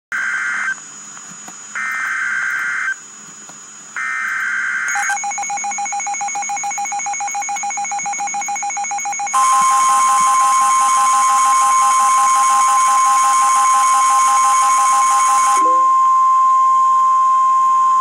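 Emergency Alert System tones for a tornado warning. Three short bursts of screeching data tones come about a second apart, then a fast pulsing tone. From about halfway through, a long, steady attention tone follows; this is the loudest part, and it thins to a single steady tone near the end.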